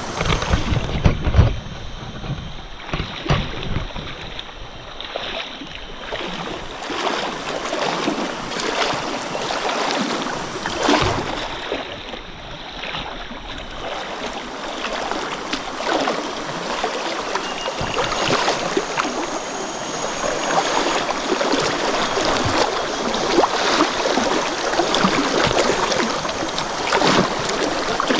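Water rushing steadily in a jungle stream, with a few low bumps on the microphone in the first few seconds.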